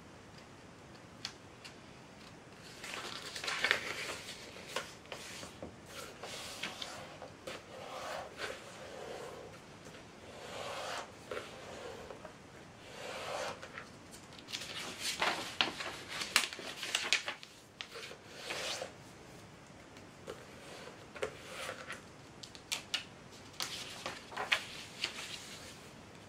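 A sheet of printer paper being handled and folded on a tabletop: irregular bursts of rustling and crinkling with sharp crisp clicks as the paper is flexed, laid down and creased. The first few seconds are quiet, and there is a short lull about two-thirds of the way through.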